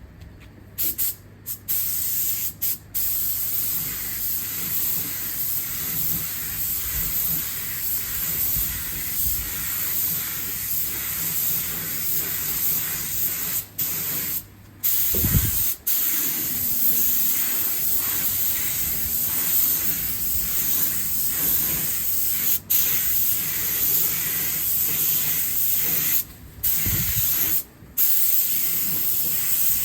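Paint spray gun hissing as clear coat is sprayed onto a car bumper, the trigger let off for short breaks several times. There is a low thud about halfway through.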